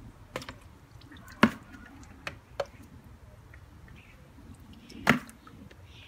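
Pond net and plastic bucket being handled at the water's edge: a handful of short, sharp knocks and splashes, the loudest about a second and a half in and another near the end, over faint water drips.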